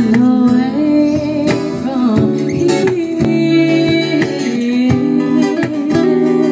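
Live acoustic band: two women's voices singing through a PA speaker over a strummed acoustic guitar, with a steady cajon beat.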